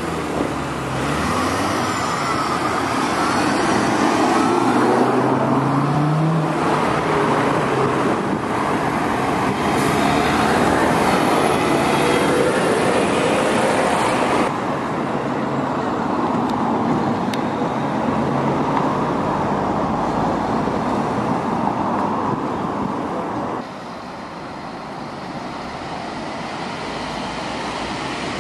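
Town-centre road traffic: cars and buses passing at close range, with one engine rising in pitch about five seconds in. The sound drops suddenly in level twice, about halfway through and near the end.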